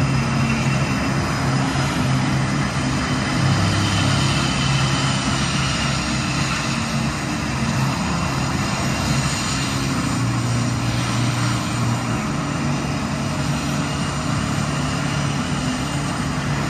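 Aircraft engines running steadily: a loud, even noise with a low drone that shifts pitch in steps.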